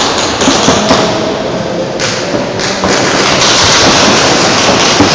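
Paintball markers firing during play, a dense run of pops and thuds over loud, noisy background din, easing a little in the middle.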